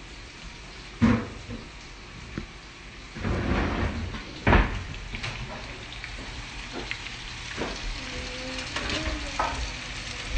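Potatoes and bacon frying in cast-iron pans, a steady sizzle, with a few sharp knocks of cookware and utensils; the loudest knock comes about four and a half seconds in.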